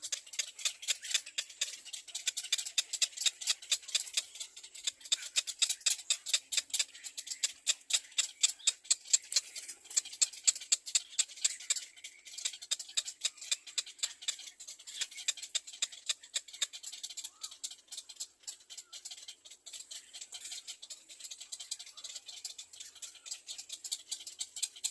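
Bird nestlings begging with a rapid string of short, high-pitched calls, several a second. The calls are louder in the first half and grow fainter after about twelve seconds.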